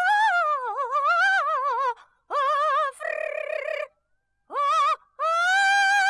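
Wordless, high-pitched sung warbling in several phrases with heavy vibrato and wavering pitch, ending on a long held note: the cartoon cicada's singing.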